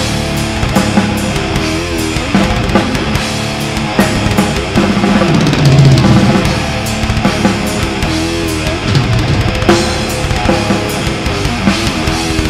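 Death metal band playing live: electric guitars over a busy drum kit with bass drum and snare hits.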